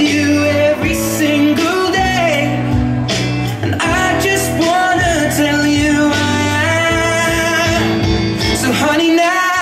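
A song with a singing voice over instrumental accompaniment and sustained bass notes, playing loudly and continuously.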